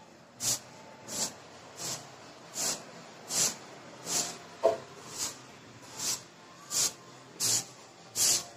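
Aerosol lubricant sprayed through a red straw into the bearing bushing of a motorcycle starter motor's end cap, to make it turn freely. It comes as about a dozen short sprays, a little under one a second.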